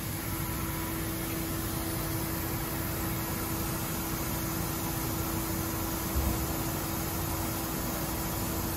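DMG Mori CTX beta 1250 TC CNC turn-mill centre with its spindle running at a steady speed, about 1,000 RPM. It gives a steady hum with one held tone over a constant hiss.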